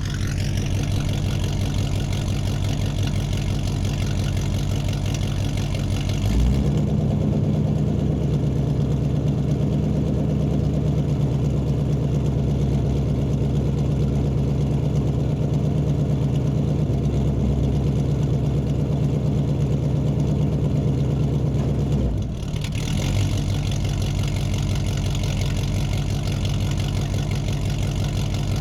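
Muscle car engine running steadily at idle. About six seconds in it steps up to a louder, higher running note, holds there, then drops back to idle about twenty-two seconds in.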